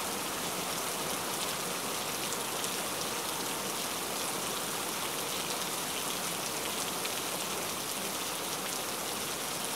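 Water poured in a steady stream from a glass jug into a cooking pot, splashing into the water already collecting in it.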